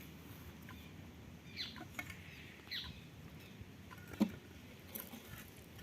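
Faint bird chirps: a few short, quick notes falling in pitch. A single sharp knock comes a little past the middle.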